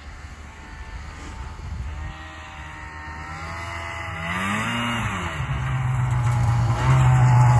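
Polaris 550 fan-cooled two-stroke snowmobile engine running and growing louder as the sled comes closer; it revs up and back down about four to five seconds in, then holds a steady note.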